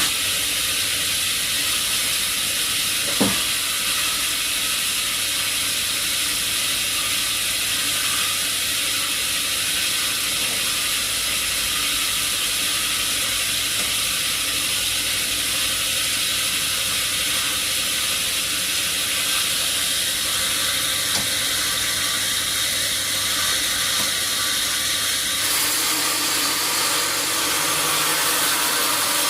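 Sawmill saw running steadily, with a hiss-like noise and a low hum. There is a single sharp click about three seconds in, and the sound changes character near the end.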